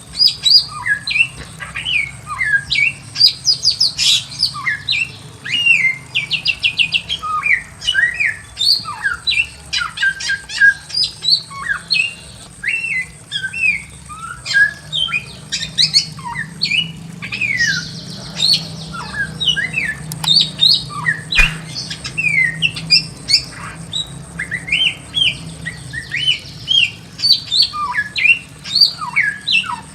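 Bare-throated whistler (samyong) singing continuously: a fast, varied run of short whistled notes and quick rising and falling glides, with hardly a pause.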